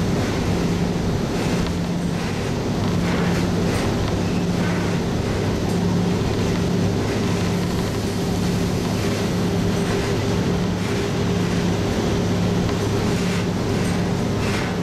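Diesel railcar running along the line, heard from inside the car: a steady engine drone with a regular pulsing beat, over the rumble of the wheels, with a few light knocks.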